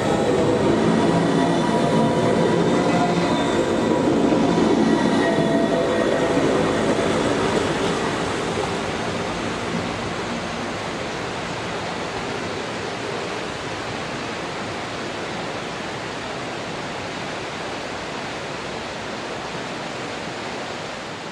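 Electric rack (cog) railway train of the Wengernalpbahn passing close by and climbing away up the rack track, with a steady whine. It fades over about eight seconds into a steady rushing background noise.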